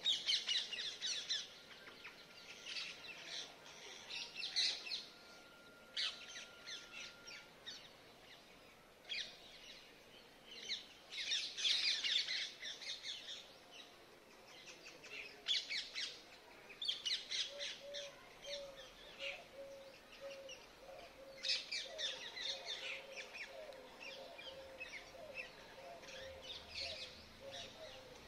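Birds calling: bursts of shrill, rapid chirping every few seconds. From a little past halfway, a low cooing note repeats steadily underneath.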